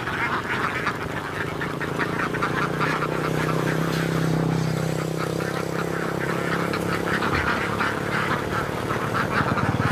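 A large flock of laying ducks quacking in a dense, continuous chorus. A steady low motor hum runs underneath from about three seconds in.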